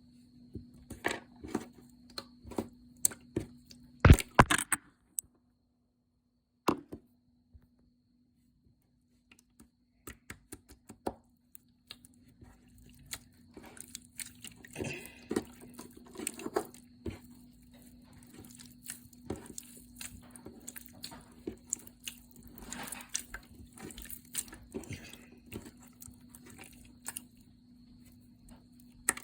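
Slime being stretched and pressed by hand: irregular sticky crackles, pops and tearing clicks, over a faint steady electrical hum. The sound cuts out completely for about four seconds near the start.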